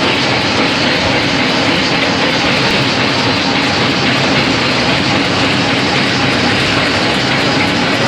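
Rice sifting machine running, its sieve driven by a 350 W electric motor through a reduction gearbox: a loud, steady mechanical rattling noise with a faint regular ticking.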